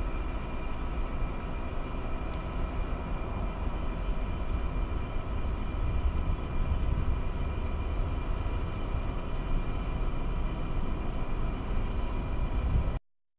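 General Electric CF6 turbofans of a Boeing 767-300ER at high thrust on departure: a steady deep rumble overlaid with a whine of several steady high tones. The sound cuts off abruptly near the end.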